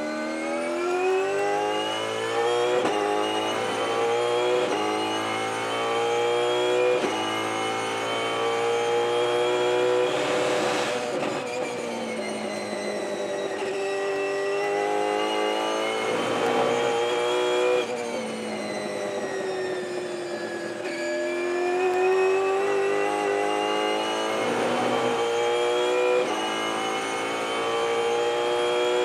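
V8 engine of a Ford Mustang Supercar racing at full throttle, its revs climbing through the gears with a sharp drop at each upshift, then sliding down as it brakes and changes down for corners, several times over.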